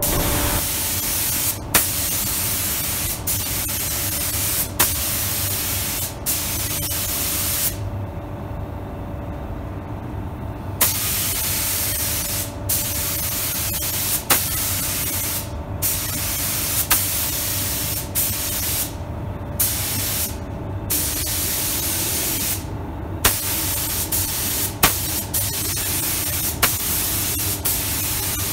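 Sata 5000 RP spray gun with a 1.2 tip hissing as it sprays clear coat in passes. The hiss drops out briefly several times between passes, once for about three seconds. Sharp clicks come about every second and a half over a faint steady hum.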